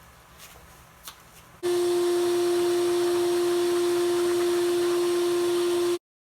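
A few faint handling clicks, then a loud, steady hum with a hiss over it that starts abruptly and cuts off dead near the end.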